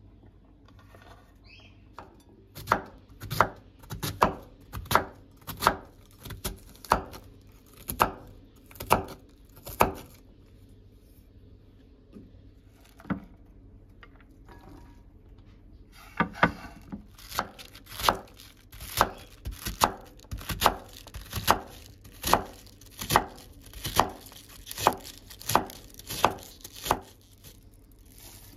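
Kitchen knife chopping vegetables on a wooden cutting board: a run of sharp, even knocks at about one and a half a second, a pause of several seconds, then a second run.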